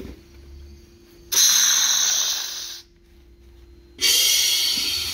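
Two bursts of compressed air hissing at a pressure brake bleeder tank. Each starts suddenly and tapers off; the first comes about a second in and lasts about a second and a half, and the second starts about four seconds in and runs longer.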